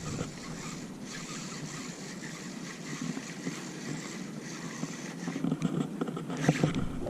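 Steady outdoor hiss of open water, with a few light knocks near the end.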